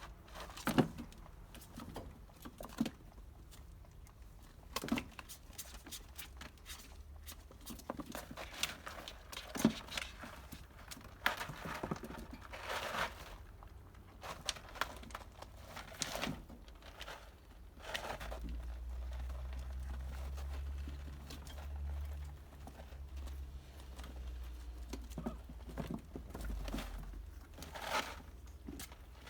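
Kittens moving about on a crinkly surface: scattered rustling, scratching and small knocks, with a low hum for several seconds past the middle.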